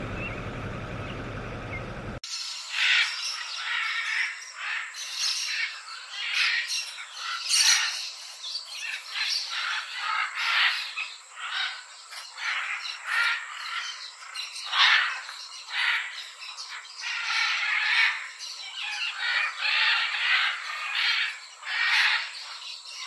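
A steady noisy rumble that stops suddenly about two seconds in, giving way to a flock of red-and-green macaws squawking, many harsh calls overlapping without a break.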